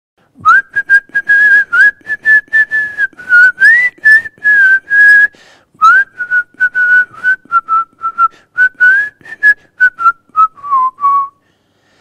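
A person whistling a melody alone, in many short separate notes with small slides between pitches; the tune drifts lower at the end and stops shortly before the end.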